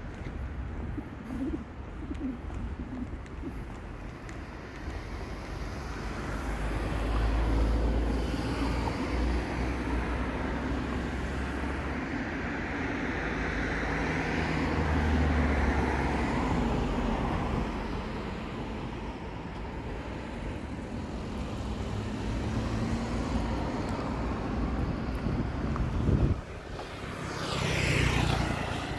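Road traffic going by: vehicles pass one after another, swelling and fading, over a steady low rumble. A louder vehicle passes close near the end.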